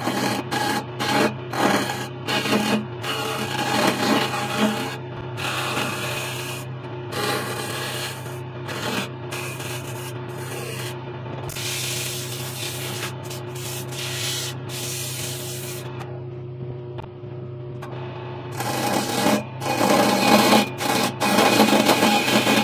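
Wood lathe motor humming steadily while a chisel scrapes the spinning pine table leg in short, uneven bursts. Around the middle, sandpaper held against the turning wood gives a steadier rubbing hiss. The scraping bursts return near the end.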